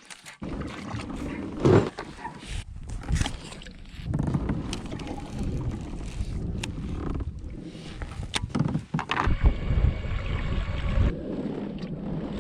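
Gusting wind buffeting the microphone on a kayak, a low rumble that swells and eases, growing stronger about nine seconds in, with a few sharp knocks.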